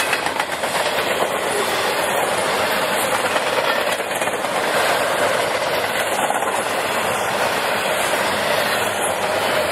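A train passing on the rails: the wheels make a steady noise that holds throughout, with no horn.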